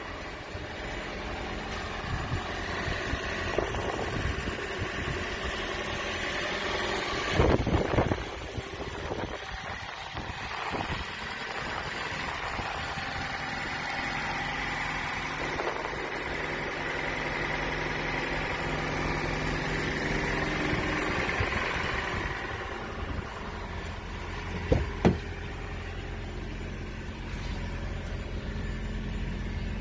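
A car engine idling steadily, with wind buffeting the microphone. There is a loud wind rumble about eight seconds in and two sharp clicks near the end.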